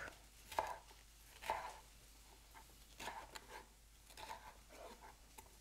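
Chef's knife slicing through a red bell pepper on a wooden cutting board: faint, irregular crisp cuts and light taps of the blade on the board, several in a row.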